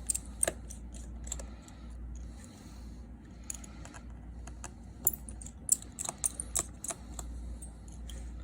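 Small repair tools and phone parts being handled: scattered light clicks and taps, with a run of sharp ticks about five to seven seconds in, over a faint steady low hum.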